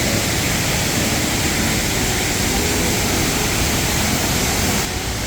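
Large waterfall crashing: a loud, steady, even rush of water with faint voices underneath.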